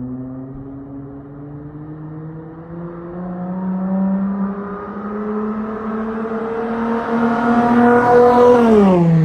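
Dodge Charger SXT V6 through a Flowmaster Outlaw exhaust, revs climbing steadily over about eight seconds and growing louder, then dropping quickly as the throttle closes near the end.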